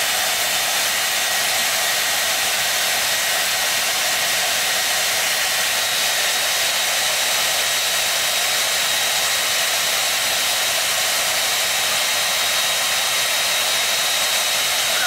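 Handheld hair dryer running steadily: a loud, even rush of air with a faint thin high whine over it.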